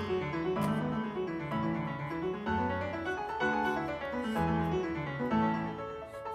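Background piano music, a steady flow of notes over a moving bass line.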